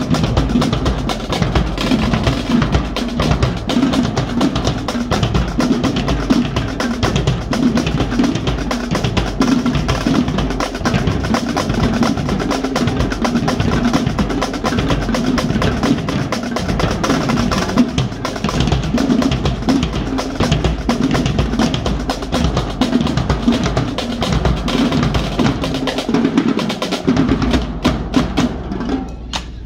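A marching drumline playing together: Pearl marching snare drums, tenor drums and bass drums, with dense, fast snare strokes over steady bass-drum hits.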